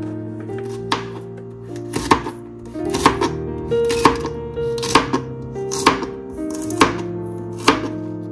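Chef's knife chopping fresh okra on a plastic cutting board, a sharp knock against the board about once a second. Background music with sustained notes plays underneath.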